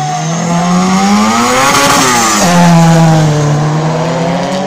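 Car engine accelerating hard. Its pitch climbs for about two seconds, drops sharply, then holds and climbs again.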